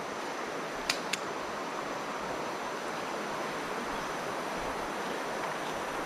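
Steady rushing hiss of a flowing river, with two quick sharp clicks about a second in.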